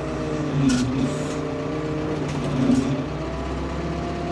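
Ford P-42 excavator engine running steadily while the hydraulics work the boom, its low hum easing off for a couple of seconds in the middle. Two short crackles are heard, about a second in and near the end.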